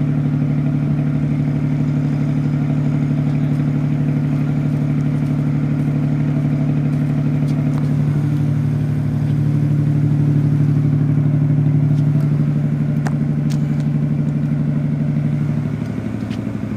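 Steady low drone of a ship's engine running, swelling slightly midway and easing near the end, with a few faint clicks over it.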